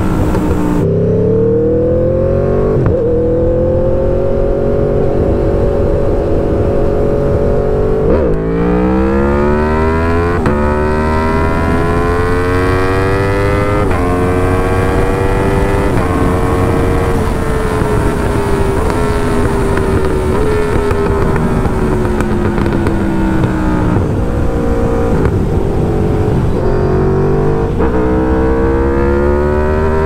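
2021 Aprilia Tuono V4 1100 Factory's V4 engine breathing through an uncatalysed SC Project S1 exhaust, heard from inside the rider's helmet. It revs up hard through several gear changes, with a sharp drop in pitch at each shift. Through the middle the pitch falls slowly with the throttle off, with a few downshift blips, and it accelerates again near the end.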